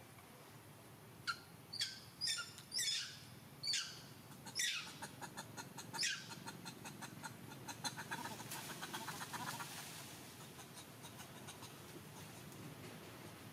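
A run of about seven short, high animal calls, each sliding down in pitch, over the first six seconds, followed by a fast ticking trill lasting a few seconds.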